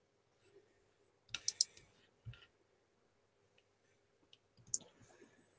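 Faint clicks from someone working a computer. A quick run of three comes about a second and a half in, one more about a second later, and a few scattered clicks near the end.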